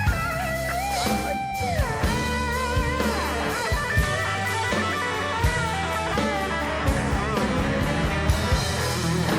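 Live rock band playing: an electric lead guitar solo with long bending, sliding notes over bass guitar and drums.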